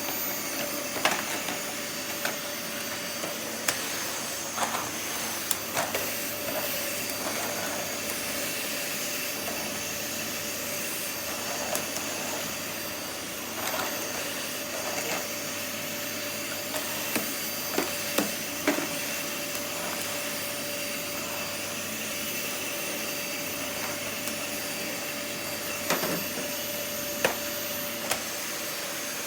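Vacuum cleaner running steadily with a constant whine, broken by scattered short clicks and knocks.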